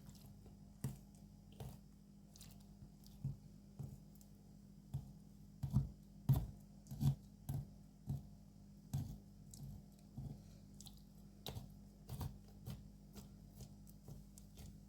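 Knife being jabbed repeatedly into a raw lamb leg to cut small holes for spices, heard as short knocks and clicks at an irregular pace, about one or two a second.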